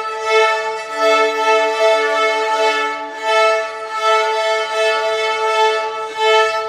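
Violin music: long, sustained bowed notes on a steady pitch, with a brief dip at each change of bow every second or two.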